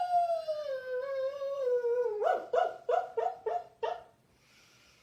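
Dog vocalizing: one long whining howl that slowly falls in pitch, then a quick run of about seven short yips, around four a second.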